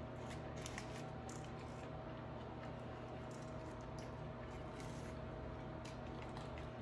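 Faint eating sounds from a soft shell crab meal: scattered small clicks and smacks over a steady background hum.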